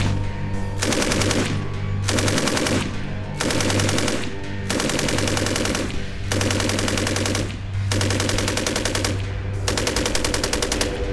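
SAR 762 MT 7.62 mm machine gun firing automatic bursts of rapid shots, each about a second long, about eight times with short pauses between them, over background music.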